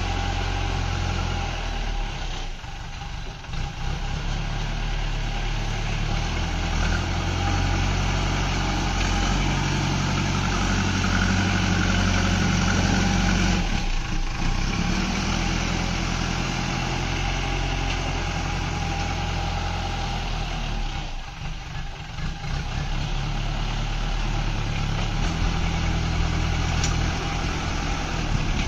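JCB backhoe loader's diesel engine running and revving as the machine drives about and pushes soil with its front bucket, the engine note shifting as it works. The sound dips briefly about three seconds in and again a little past twenty seconds.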